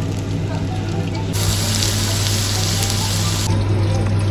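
Kitchen tap running into a sink, a steady rushing hiss that starts abruptly just over a second in and stops about two seconds later, over a low steady hum.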